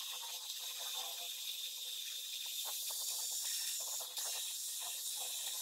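Bench drill press running with a hole saw boring into a clamped wooden block: a steady hiss with a faint steady hum and light scattered ticks.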